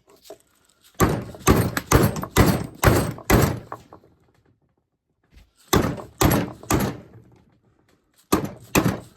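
Repeated sharp hammer blows in three runs of about two strikes a second, six, then three, then more near the end. They sound like striking a tool to break stuck engine-case bolts loose.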